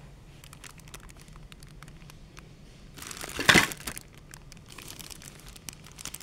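Clear plastic parts bags crinkling as they are handled, with scattered small crackles and one loud burst of crinkling about three and a half seconds in.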